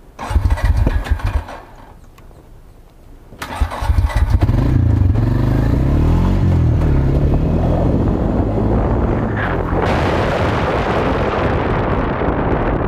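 Quad bike (ATV) engine: a short burst of engine noise, a quieter pause, then the engine starts about three and a half seconds in and runs steadily under way, with a brief rise and fall in revs around six seconds.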